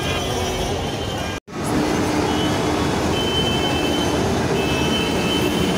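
Busy street traffic noise, a steady rumble with thin tones that come and go, cut off briefly about a second and a half in.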